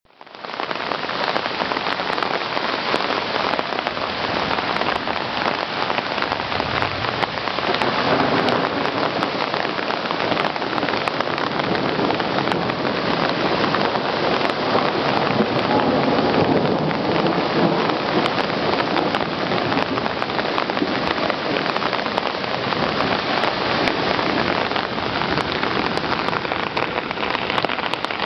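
Torrential rain pouring down together with a swollen, muddy stream in flood rushing past: a loud, steady hiss.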